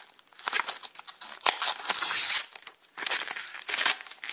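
Clear plastic wrap crinkling and crackling in irregular bursts as it is peeled off and handled, loudest about two seconds in.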